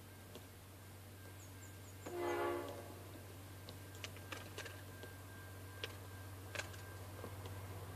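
A distant train horn gives one short blast about two seconds in, over a steady low hum, followed by a few faint clicks.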